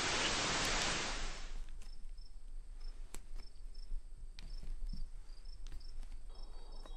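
Crickets chirping: short high chirps repeating in a quiet night ambience, with a hissing wash fading out during the first second and a half.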